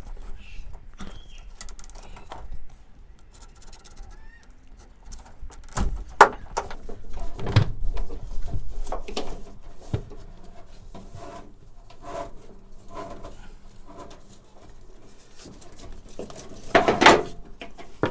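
Rubbing, scraping and scattered knocks of hands and a blunt knife working a taped-on cable free, with a louder clatter near the end.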